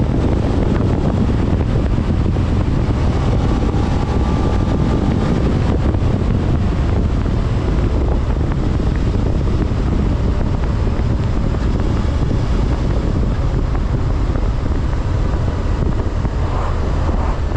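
Heavy wind buffeting on the microphone while riding, with the stock-exhaust 645 cc V-twin engine of a 2024 Suzuki SV650 running underneath.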